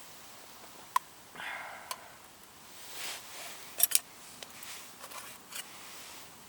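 Small objects being handled: a few sharp clicks, the loudest a quick double click near the middle, among short rustling noises.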